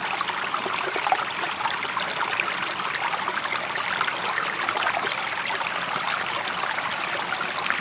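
Shallow stream running over stones, a steady babbling trickle with many small splashes and gurgles.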